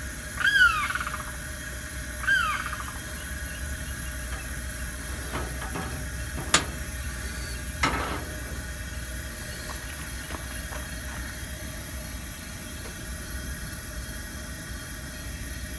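Lit burner of a Coleman 413G white-gas camp stove hissing steadily. A bird gives two falling calls in the first few seconds. About six and eight seconds in, a stainless percolator clanks twice against the stove's wire grate as it is set on the burner.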